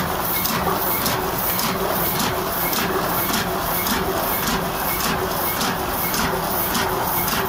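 Heidelberg GTO 46 sheetfed offset printing press running, a steady mechanical clatter with a regular clack about three times a second as its rollers and cylinders turn.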